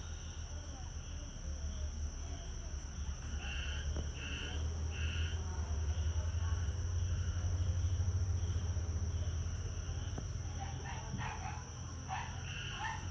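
Evening insect chorus: a steady high-pitched drone, with short animal calls in a group of three about three and a half seconds in and a cluster of them near the end. A low rumble swells in the middle.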